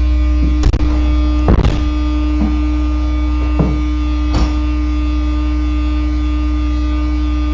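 Loud, steady low drone of a sewer pump-out truck running, with several short knocks or clicks in the first few seconds.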